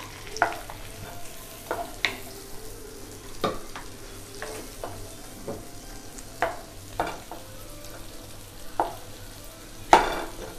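Chopped onions sizzling in melted butter in a nonstick kadai, stirred with a wooden spatula that scrapes and knocks against the pan about ten times at irregular intervals, most loudly near the end.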